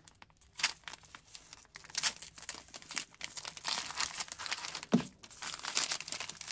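Brown kraft-paper parcel wrapping being slit with a knife and torn open by hand, crinkling and ripping in quick, irregular rips.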